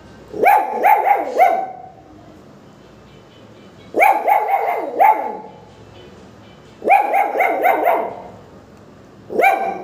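A Pomeranian barking in four bursts of several quick, high-pitched yaps each, with pauses of about two seconds between the bursts.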